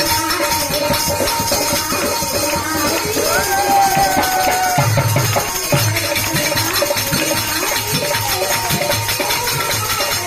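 Instrumental passage of bhajan music: a fast, steady hand-percussion rhythm with bright shaking or jingling strokes, under a melody that holds one long note about three and a half seconds in.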